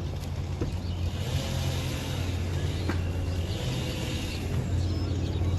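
A vehicle engine idling with a steady low hum, with a faint click about three seconds in.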